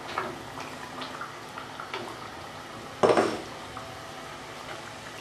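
Cooked saag being scraped from a bowl into a clay pot of chicken curry, with small clicks of a wooden spoon against the pot over a steady low hiss from the pot; about three seconds in comes one loud wet thud as the greens drop in.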